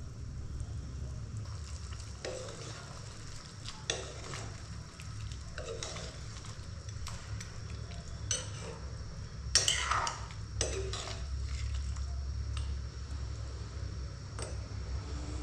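A spoon stirring and scraping in a pot of frying fish curry, with a faint sizzle and scattered clinks and scrapes against the pot, loudest about ten seconds in. A steady low hum runs underneath.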